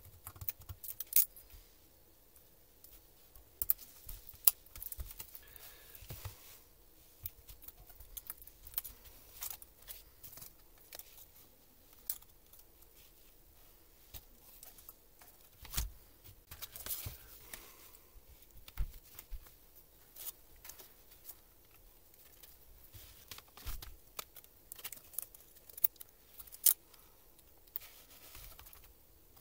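Scattered sharp clicks and taps with light rustling from a laptop's chiclet keyboard, with its metal back plate and plastic frame, being handled and lifted out of the laptop.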